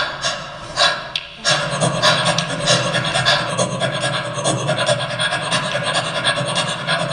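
Live percussion: a few evenly spaced strokes, then from about a second and a half in a dense, continuous run of fast strokes.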